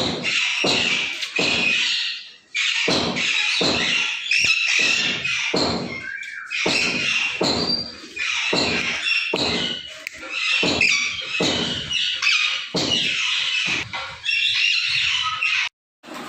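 Parrots squawking over and over: harsh, noisy calls about one or two a second, with a short break near the end.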